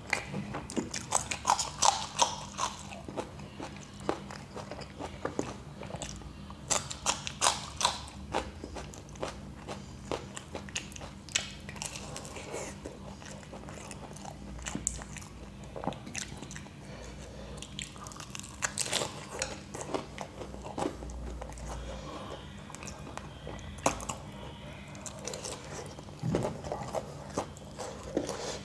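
Biting and chewing fried samosas and raw green chillies: irregular crunches and bites, often several a second, with quieter chewing between them.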